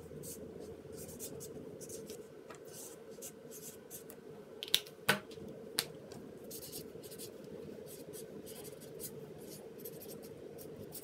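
Felt-tip marker writing on lined paper: a series of short scratchy strokes as letters are drawn. A few sharp clicks come about halfway through, over a steady hum.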